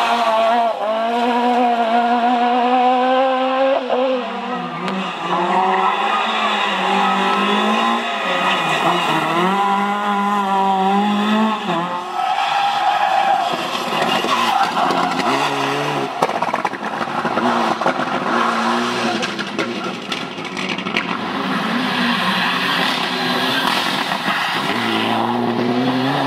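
Rally cars driven hard past one after another, their engines revving up and dropping back again and again through gear changes, over tyre noise on a wet surface. The later cars are Mitsubishi Lancer Evolutions.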